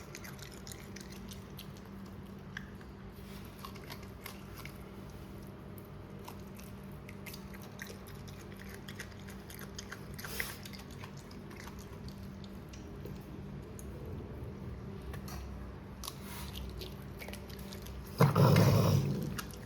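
A raccoon chewing and crunching its food: many small irregular crunches and clicks over a steady low hum. Near the end a louder burst of noise lasts about a second and a half.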